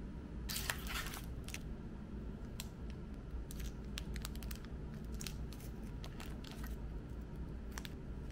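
Cellophane wrappers on individually wrapped cakes crinkling as they are picked out of a box and handled: a longer rustle about half a second in, then scattered short crinkles.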